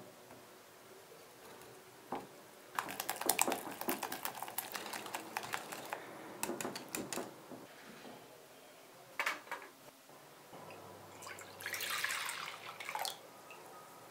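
Wire whisk beating eggs and cornstarch in a glass bowl: fast, irregular clicking and tapping of the wires against the glass for several seconds, then a few single taps. Near the end there is a brief rushing, splashy noise.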